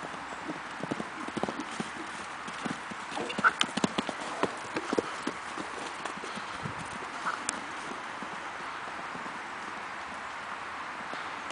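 Hoofbeats of Nokota horses running and playing: irregular thuds that cluster and are loudest around four seconds in, then die away after about seven seconds, leaving a steady background hiss.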